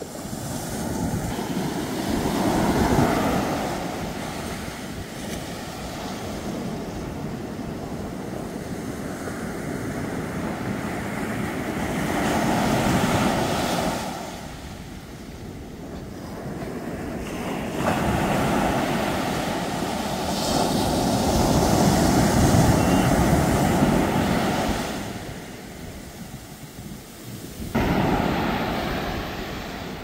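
Small ocean waves breaking close by and washing up over the sand, the surf swelling and fading several times as each wave comes in and draws back.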